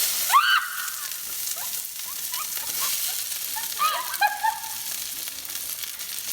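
Chopped onion and green bell pepper hitting smoking-hot canola oil in a frying pan, setting off a loud, aggressive sizzle that starts suddenly and holds steady as the vegetables sauté.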